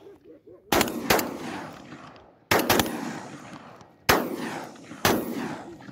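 A rapid volley of about six gunshots from hunting guns, some louder and closer than others, each trailing a long fading echo.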